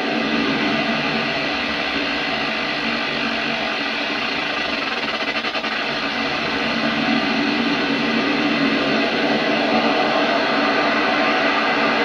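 Barton Musical Circuits BMC46 digital noise generator module putting out harsh digital noise with steady tones running through it, its freeze input driven by an LFO set to audio rate. It gets a little louder about halfway through.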